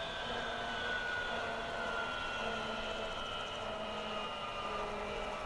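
Kaman K-MAX helicopter's turboshaft engine whining steadily, its pitch slowly falling as it winds down.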